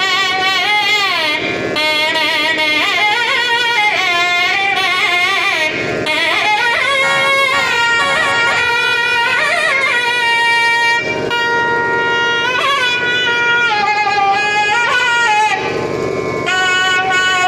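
Two nadaswarams, the South Indian double-reed pipes, playing a sliding, heavily ornamented Carnatic melody in raga Sindhu Bhairavi.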